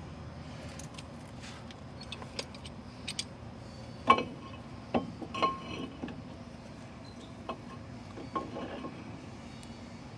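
Metal brake parts clinking and knocking as they are handled and fitted during a brake job. There are scattered light clicks, with a few sharper metallic knocks that ring briefly, the loudest about four and five and a half seconds in.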